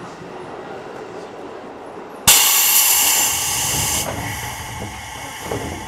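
Seibu 3000 series commuter train standing at a station, heard from inside the car: a low steady hum, then about two seconds in a sudden loud hiss of compressed air from the train's air system. The hiss holds for over a second, then fades away.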